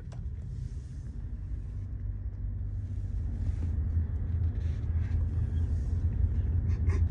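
Road and engine noise inside a moving car's cabin: a steady low rumble that grows gradually louder.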